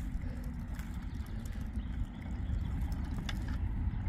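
Wind buffeting the microphone as a steady low rumble, with a couple of faint clicks.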